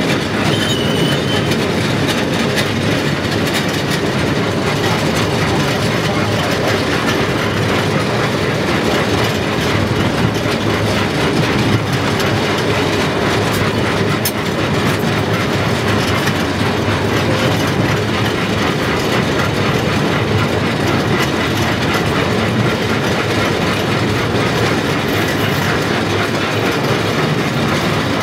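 Solar-powered miniature ride-on train running on its narrow-gauge track: a steady clatter and rattle of the wheels on the rails and the small cars.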